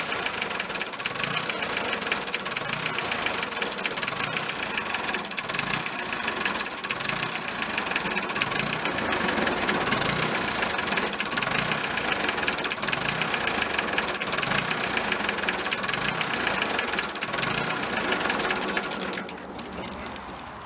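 Nuffield DM tractor's diesel engine idling steadily, then shut down near the end, its sound falling away sharply.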